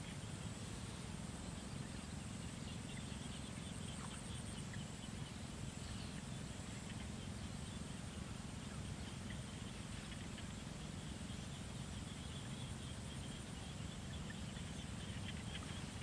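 Steady outdoor field ambience: a continuous high, thin insect drone over a low, steady rumble, with a few faint scattered calls.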